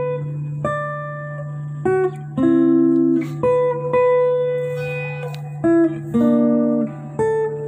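Guitar playing a slow melody of single plucked notes, each note ringing and fading, over a steady low tone, heard through the sound system during a mixer sound check.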